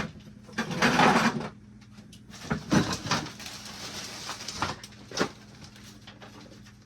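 Handling noise as objects are picked up and moved: a sharp click, a loud rustling scrape about a second in, then scattered knocks and clicks over a faint steady hum.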